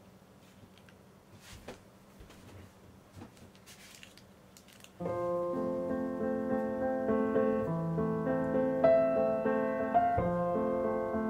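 A few faint scrapes and taps, likely from a metal offset spatula spreading whipped cream on a sponge cake, over a near-silent background. About halfway through, piano music comes in and plays on.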